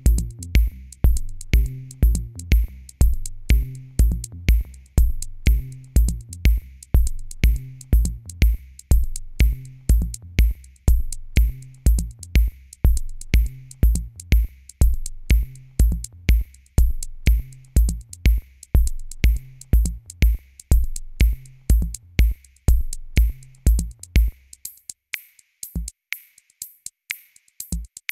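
Electronic background music with a steady drum-machine beat and bass line. Near the end the kick and bass drop out, leaving a light ticking hi-hat.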